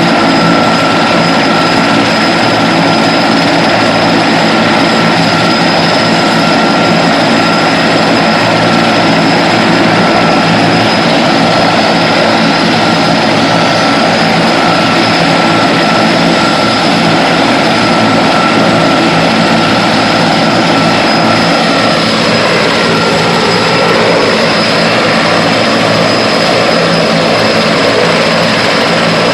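Large firefighting helicopter's turbine engines and rotor running loud and steady, with a high turbine whine over the rotor noise. The sound shifts briefly in pitch a little after three-quarters of the way through.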